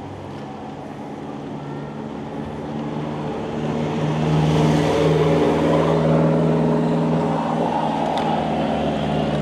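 Engine of a small box truck overtaking close by: a steady pitched drone that grows louder over a few seconds, then holds as the truck runs just ahead.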